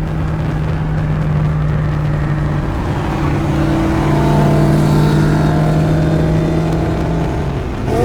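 A car engine running steadily at a constant speed, a low even hum with overtones.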